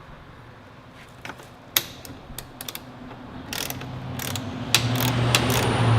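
Ratcheting socket wrench clicking as a bolt is turned, a few single clicks at first and then quicker runs of clicks in the second half, with a low hum coming up under them.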